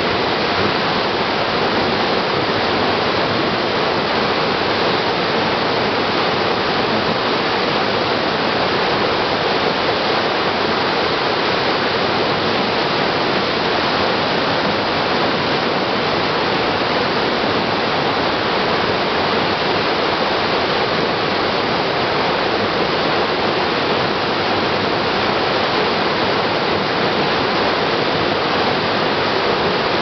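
Steady, unbroken rush of the Pigeon River's High Falls, a large waterfall pouring in two channels into a rock gorge.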